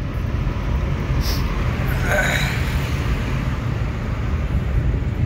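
Car cabin noise while driving at low speed: the engine and tyres make a steady low rumble, with a short brighter hiss about two seconds in.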